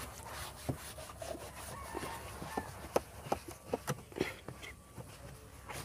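Foam sponge rubbing and wiping over a car's plastic dashboard, with scattered short squeaks and taps as it is worked across the surface.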